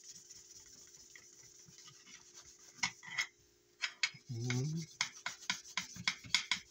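A paper towel rubbed hard over a wooden gun grip panel: a steady papery hiss for the first few seconds, then quick scrubbing strokes that come several a second. Halfway through there is a brief low rising tone.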